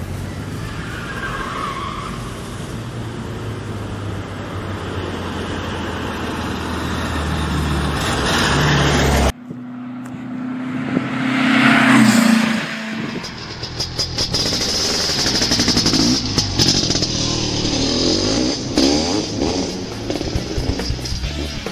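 Car engine running, growing louder over the first nine seconds, then an abrupt cut to another stretch of vehicle sound that is loudest about twelve seconds in.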